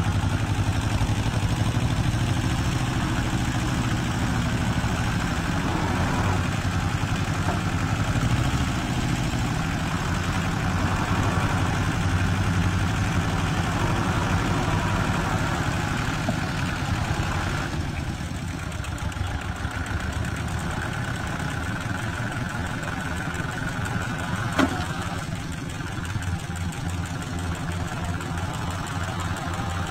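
Kubota tractor diesel engine running steadily while towing a second tractor stuck in a muddy ditch. It turns a little quieter about two thirds of the way through, with one short knock a few seconds later.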